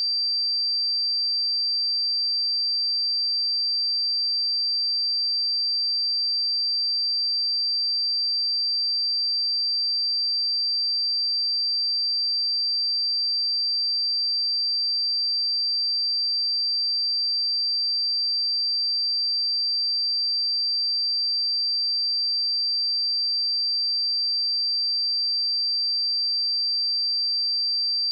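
A pure 4693 Hz sine-wave test tone, one steady high-pitched whistle held at a constant level.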